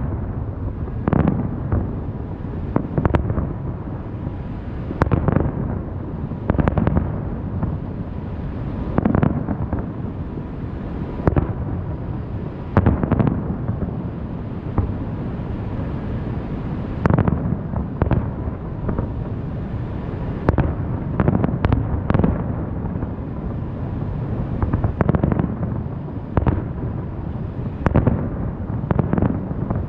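Aerial fireworks bursting: sharp bangs every second or two over a continuous low rumble of echoing booms.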